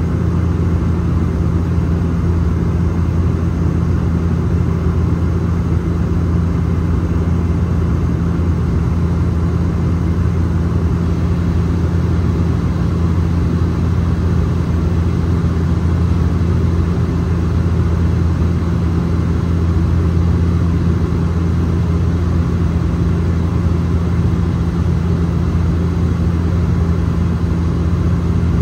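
Cabin noise of a Bombardier Dash 8 Q400 in flight, heard from a window seat inside the cabin. Its two Pratt & Whitney Canada PW150A turboprops and propellers keep up a steady low drone with a constant deep hum, over the rush of the airflow, during the descent.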